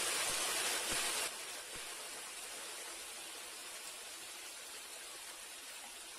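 Eel pieces deep-frying in hot oil in a pan, a steady sizzling hiss. It is loudest for the first second or so, then drops to a quieter sizzle that slowly fades.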